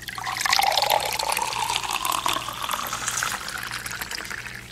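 Water poured from a cup into a glass bowl of instant coffee and sugar: a steady splashing pour whose pitch rises slowly as the bowl fills, tapering off near the end.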